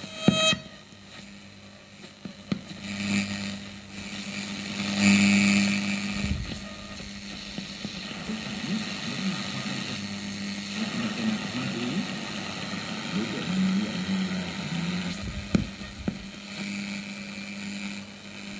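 Sony CFS-1110S radio's speaker giving static hiss, whistles and warbling snatches of broadcast as its tuning gear is turned by hand across the band, with a louder burst about five seconds in. Reception is weak and unstable.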